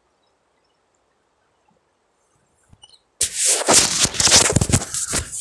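Faint, steady background hiss, then about three seconds in a sudden loud, scratchy rustling as the phone is handled and something rubs over its microphone.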